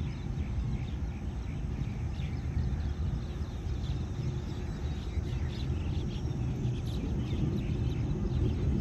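Diesel railcar engine giving a low, steady rumble as it moves into a station loop line, growing louder near the end. Birds chirp over it.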